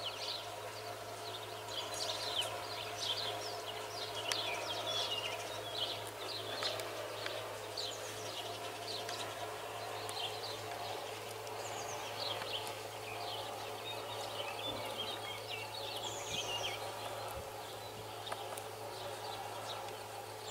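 Small birds chirping and singing, many short calls and trills overlapping, over a steady low hum.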